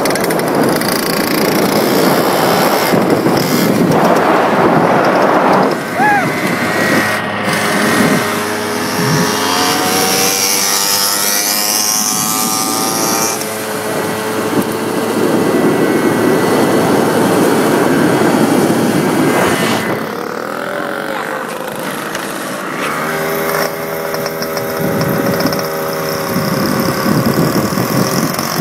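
Small motorized-bicycle kit engines running under way, their pitch rising and falling with the throttle, with wind rushing over the microphone.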